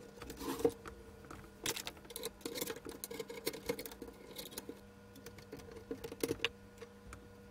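Irregular light clicks and taps of hands and a screwdriver handling the circuit boards, connectors and metal case of an open Arcam Alpha 6 CD player during reassembly. A faint steady hum runs under them.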